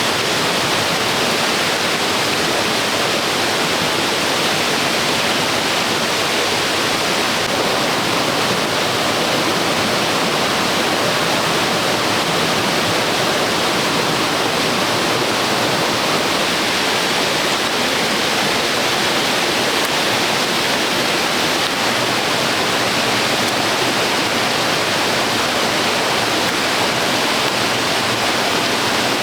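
Running water rushing steadily at an even level, with no pauses or changes.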